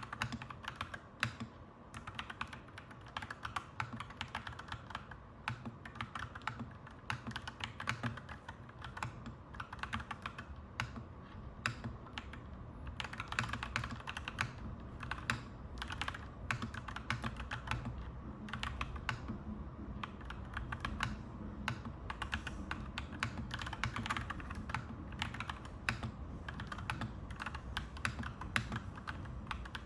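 Continuous fast typing on a clacky mechanical keyboard: dense, irregular key clicks with brief pauses, over a steady low background rumble.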